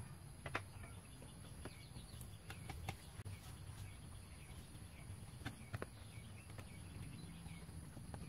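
Scattered light knocks and clicks of bamboo pieces being handled and laid on a roof, over a steady high insect drone and a low rumble.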